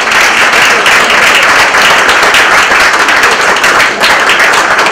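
Audience applauding: many hands clapping, loud and steady.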